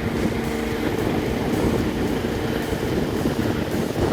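Snow groomer engine running steadily.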